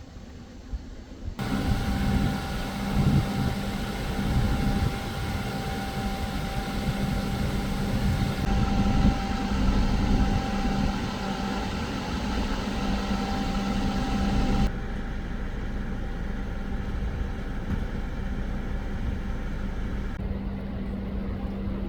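A vehicle engine running steadily at idle, with a constant hum and a wash of noise; the sound changes abruptly several times.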